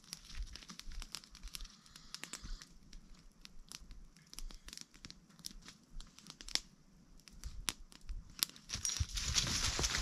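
Small campfire with scattered sharp crackles and twig snaps. A louder rushing hiss with a low rumble sets in about nine seconds in.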